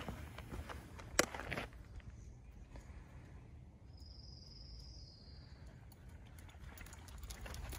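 Footsteps on a dirt trail, then a pause in which a single high, thin note sounds for about a second and a half, dropping slightly in pitch, before the steps pick up again near the end.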